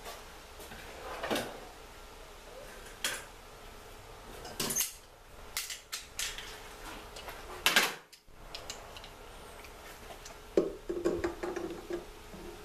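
Metal hand tools and fittings being handled: scattered clicks and knocks, then a short run of clinking and scraping near the end as a wrench is worked on a threaded fitting in the lift pump's aluminium manifold.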